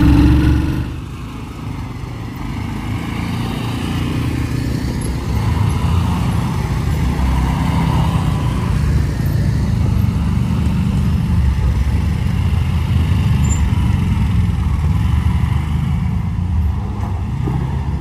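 Quad bike (ATV) engine running while being ridden, a steady low drone. It dips about a second in, then builds up over the next few seconds and holds.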